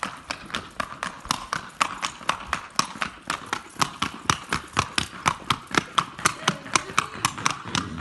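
Hooves of a young Colombian criollo stallion striking stone paving in a fast, even clatter, about five or six hoofbeats a second, as it trots in a collected, short-stepping gait.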